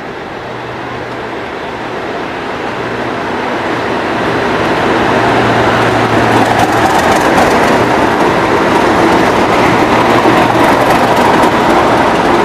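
A pair of Class 37 diesel-electric locomotives, with English Electric V12 engines, passing close. Their engine drone grows louder over the first five seconds as they draw level, then holds steady, with clicking from the wheels over the track.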